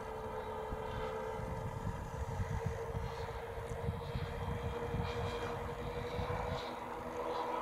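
Twin Saito FG-19R3 three-cylinder gasoline radial engines of a large radio-controlled B-25 model droning steadily in flight overhead, with a low gusty rumble of wind on the microphone for a few seconds in the middle.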